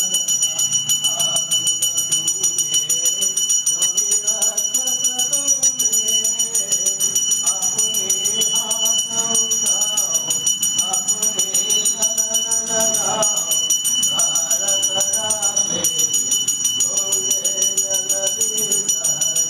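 Bell rung rapidly and without pause during an aarti, its ringing holding steady high pitches, with voices singing a devotional chant.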